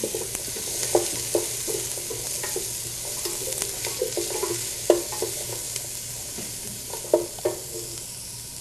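Carrots, celery and onion sizzling as they sauté in an aluminium stock pot, stirred with a wooden spoon that knocks irregularly against the pot, each knock ringing briefly.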